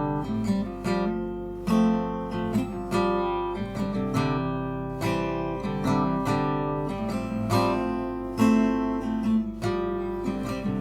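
Acoustic guitar playing an instrumental intro: chords strummed at a steady pace, each left to ring out.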